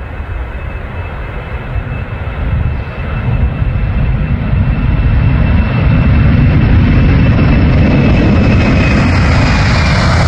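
Boeing 747-400F freighter's four jet engines at takeoff thrust as it rolls down the runway and lifts off. A deep rumble grows louder over the first half and then holds steady, with a thin high whine above it that dips slightly in pitch near the end.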